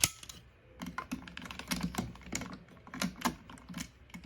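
Irregular clicks and taps of hard plastic as a simplified Kamen Rider Kabuto toy transformation belt is handled, its parts pressed and fiddled with.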